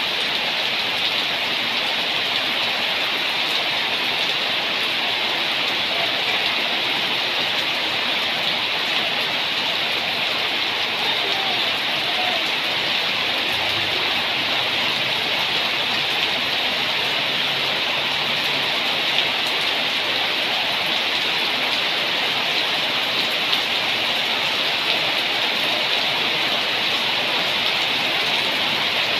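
Steady rain falling: an even, unbroken hiss, strongest in the upper range, with no thunder or single drips standing out.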